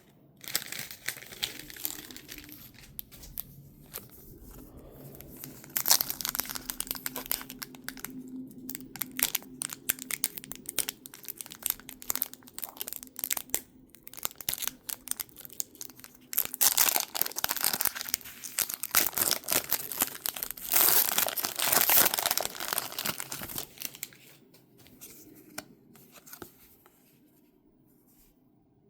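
Crinkly packaging being torn open and crumpled by hand, in fits and starts with the loudest tearing in two spells in the middle, then dying down to light handling near the end.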